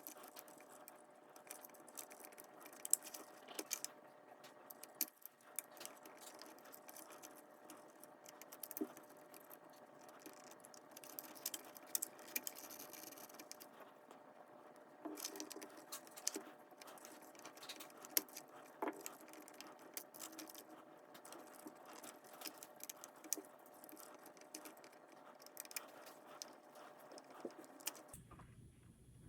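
Faint, scattered clicks and light taps of small metal parts being handled: tiny screws and aluminum suspension links being fitted to an Axial SCX24 micro crawler's axle and chassis.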